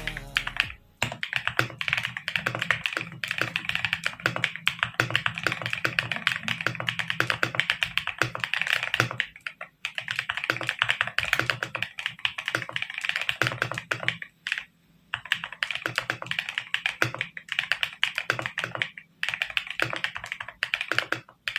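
Keys of a Subor X68 keyboard being typed on quickly, a fast run of clicks in bursts with a few short pauses.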